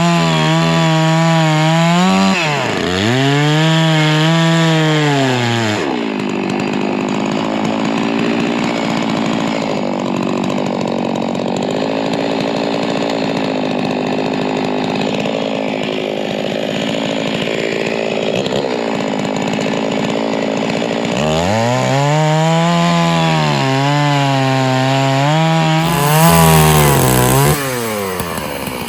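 Stihl chainsaw revving up and down in repeated swells, then held at a steadier, lower pitch for about fifteen seconds as it cuts through a log, and revving up and down again near the end.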